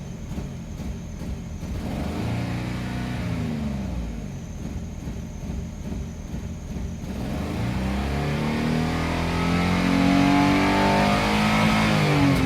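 2002 Infiniti QX4's 3.5-litre V6 engine revved with the gas pedal: a short rise and fall a few seconds in, then a longer climb held high near the end before the revs drop. The engine has a misfire that the owner traces to cylinder 4 (code P0304), with raw fuel smell and the revs bouncing as the pedal ramps up.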